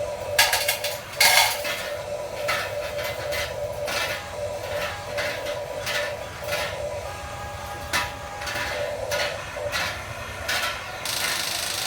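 Small electric motor of a mini remote-control construction toy whining steadily, with repeated sharp clicks and clatters of hard parts or material knocking together, two of them loudest about a second in and a harsher scraping stretch near the end.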